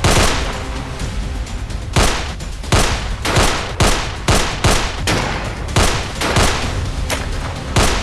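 Rifle gunfire: a rapid, irregular exchange of more than a dozen single shots, each with a short ringing tail, over low background music.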